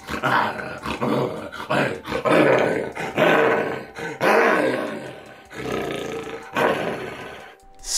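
A man imitating a lion's roar by roaring from the back of his throat into a glass oil-lamp chimney, which resonates the sound. It comes as a series of about seven rough roars and growls, each under a second long, with short breaths between them.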